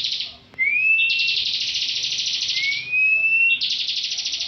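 Bar-winged prinia (ciblek) singing its 'ngebren' song. Each phrase is a short rising whistle that runs straight into a long, rapid, buzzing trill, and two such phrases are heard here.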